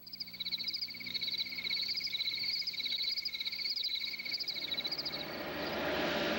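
Crickets chirping in a fast, even trill, with a higher warbling chirp over it, in a quiet yard. Near the end the chirping gives way to a rising rush of noise.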